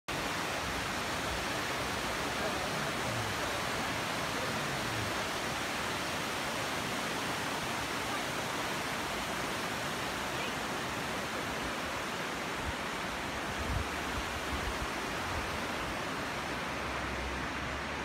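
Waterfall spilling down a rock cliff into a stony stream, a steady, even rush of falling and running water. A few brief low bumps come about three-quarters of the way through.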